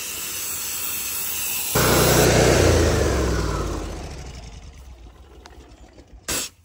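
A steady hiss, then an engine comes in suddenly and loudly about two seconds in, falling in pitch as it fades away over a few seconds. A brief burst of noise follows near the end.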